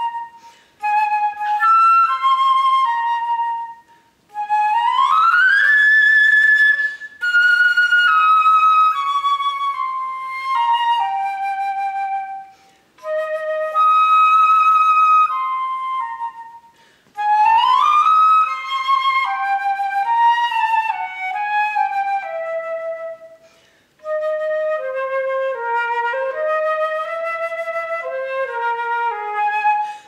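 Solo concert flute playing short melodic phrases, with swift upward slides twice and stepwise falling runs, broken by brief breath pauses.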